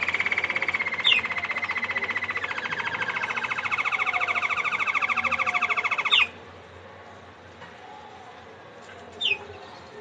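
Canary singing a very fast rolling trill that steps down to a lower pitch a couple of seconds in and cuts off abruptly about six seconds in. Short down-slurred chirps come every few seconds.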